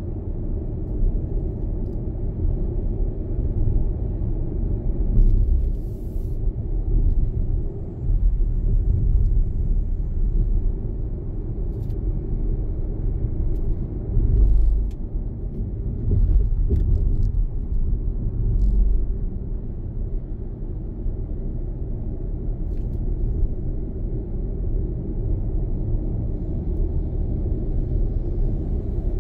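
Car driving on a city road: a steady low rumble of tyre and engine noise that swells and eases, with a few faint ticks.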